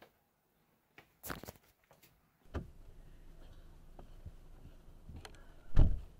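Inside a parked car: a steady low hum sets in about two and a half seconds in, with small clicks and knocks as people get in, and a heavy low thump near the end.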